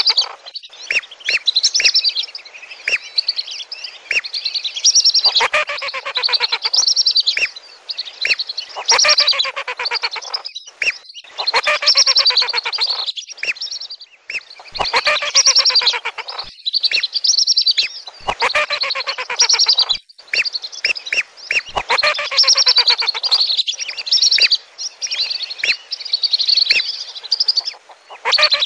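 Flock of whistling ducks giving shrill whistled calls, many birds overlapping in dense bouts that come every couple of seconds with short breaks between: a lure call for whistling ducks.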